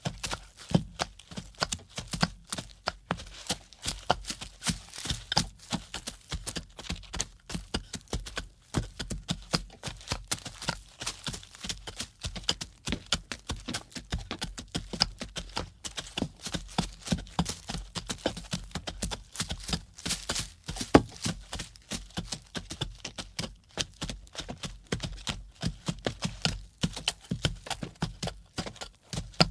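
Rapid, irregular clicks and knocks, several a second, running on without a break.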